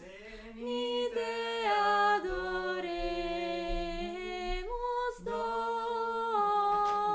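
Unaccompanied singing: long held notes that step up and down in pitch, with no instruments.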